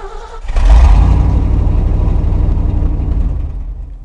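Truck engine exhaust, recorded close from under the vehicle. It starts up suddenly about half a second in, runs loud and steady, and gradually quietens toward the end.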